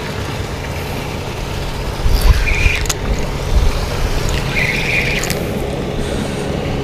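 Steady low motor hum, with bouts of rumbling and a few light clicks.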